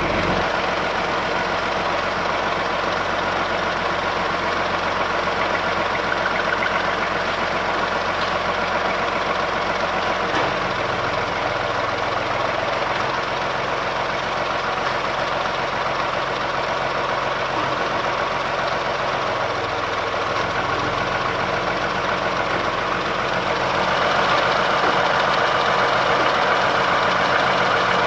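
Ford Escape engine idling with a steady knock, which the owner puts down to a spun bearing. It gets a little louder in the last few seconds.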